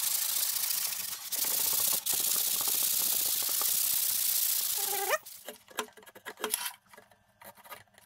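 Hand sanding of a wooden tabletop with a sanding block: a steady rasping back-and-forth scrub for about five seconds. It ends in a short rising squeak and is followed by scattered light knocks and scrapes.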